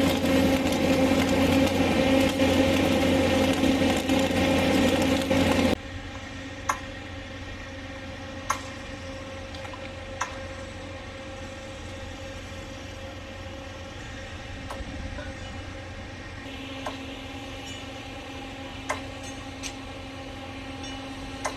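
Mobile flash butt rail welding machine running loudly with a steady, even-pitched engine hum while the rail ends are flashed. About six seconds in, it drops abruptly to a much quieter steady hum with a few sharp clicks.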